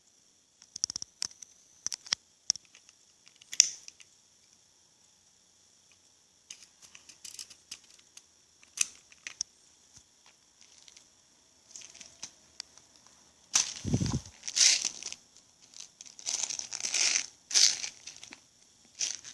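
Handling noise: scattered light clicks, then, from about 13 seconds in, a low thump followed by a few seconds of crinkling and rustling.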